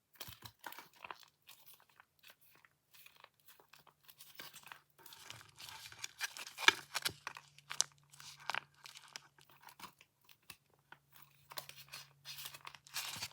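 Thin plastic packaging crinkling and crackling in irregular bursts as it is handled, most busily in the middle and again near the end.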